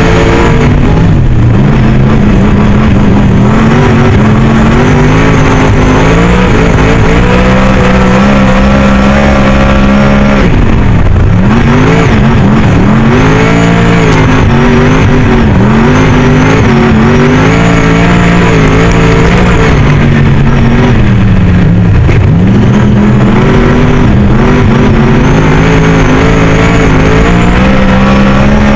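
Superstock race car's engine at racing revs, heard loud from inside the cockpit. Its pitch dips and climbs again about every ten seconds.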